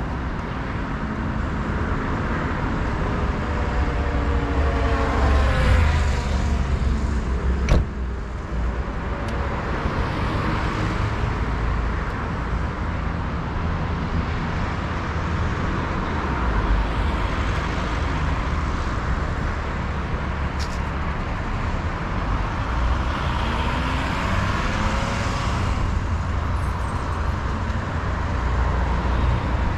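Car engine noise: a steady rumble, with the engine note gliding up and down twice, and one sharp knock about eight seconds in.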